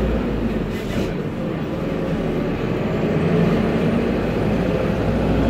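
Isuzu Citibus's turbo-diesel engine and cooling fan heard from the rear seat inside the moving bus: a steady low drone.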